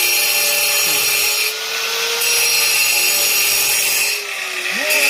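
Handheld power cutter cutting on a construction site, a steady whining grind that eases off briefly twice, about a second and a half in and again near the end.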